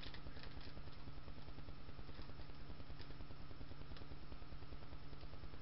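Steady low electrical hum with hiss: room tone. A couple of faint ticks come about halfway through.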